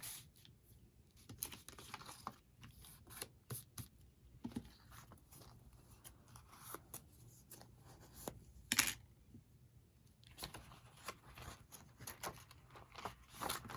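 Hands working on a book's spine and cover: scattered light scrapes, rustles and taps of paper and card, with a sharper scrape about nine seconds in.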